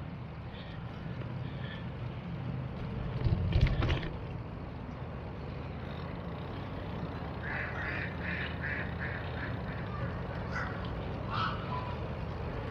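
Ducks quacking, with a quick run of about three quacks a second around two-thirds of the way through and a few single quacks after it, over a steady low rumble. A brief loud noise about a third of the way in is the loudest sound.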